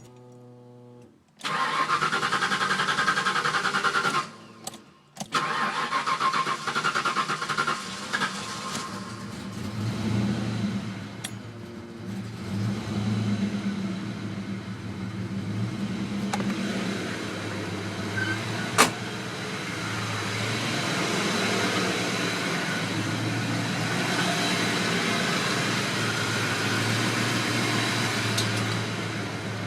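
Ford 5.0 Mustang V8 cranked by the starter in two spells of about three seconds each before it catches on the second try. Once running, the idle surges up and down for several seconds before settling to a steady idle. The long cranking and the surge are the sign of a fuel pump that is barely working.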